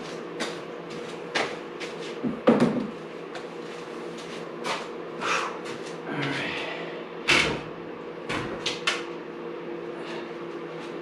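Scattered knocks and clunks of a metal sculpture piece and its bolts being handled and fitted against an oak slab, over a steady low hum. The loudest knocks come about two and a half seconds in and again just after seven seconds.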